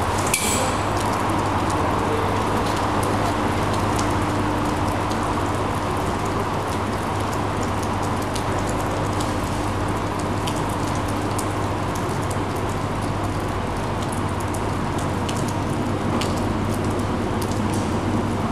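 Heavy rain falling steadily on a station platform and tracks, a dense hiss full of fine drop clicks, over the low steady hum of a TEP70BS diesel locomotive's engine as it rolls slowly by.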